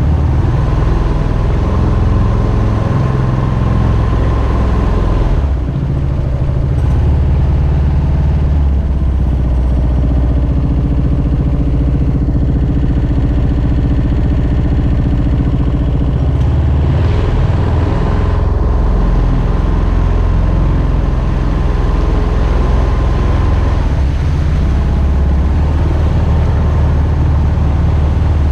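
Subaru EX21 single-cylinder engine of a Mokai jet boat running steadily, its speed shifting up and down a few times.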